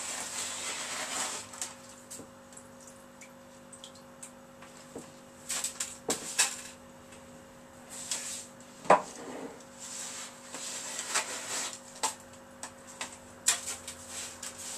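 Hand scooping wet sand mixed with small pebbles in a plastic tub: gritty scraping and rustling in irregular spells, with sharp clicks of pebbles against the plastic.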